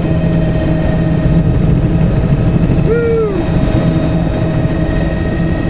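Helicopter engine and rotor noise heard from inside the cabin: a loud, steady rumble with a constant thin high whine.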